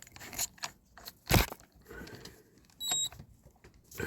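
Small tools and a diecast toy being handled on a workbench: scattered clicks and rustles, one sharp knock about a second and a half in, and a brief high tone near three seconds.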